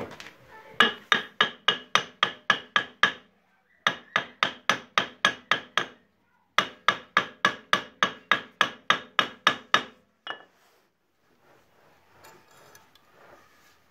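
Quick hammer blows on the stuck drum of a Rapid motor mower's engine, about four a second in three runs of roughly ten, with short pauses between and one last blow after them; each blow rings like metal. The drum is being knocked to loosen it, as it will not come off.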